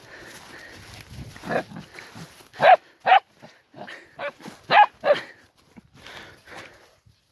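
A dog barking, about six short barks in two quick groups, the loudest near the middle.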